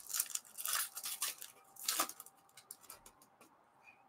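Foil wrapper of a baseball card pack crinkling and tearing as it is ripped open, in short rustling bursts over the first two seconds, followed by a few light clicks as the cards are handled.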